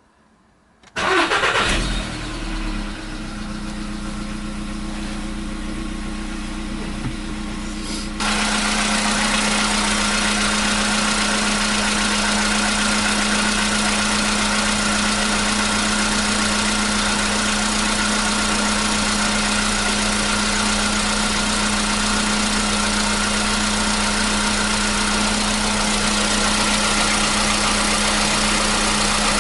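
Volkswagen Polo Sedan engine cold-started: a brief crank about a second in catches at once, and the engine settles into a steady idle. It gets louder about eight seconds in and then holds steady. It idles without the cold-start knock, which the owner says has disappeared.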